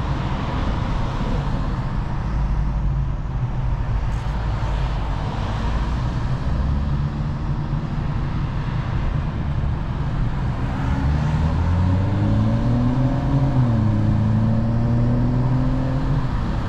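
BMW 435i's N55 turbocharged straight-six running low in slow traffic, with road noise. About eleven seconds in it pulls away: the engine note rises, drops at a gear change, and climbs again.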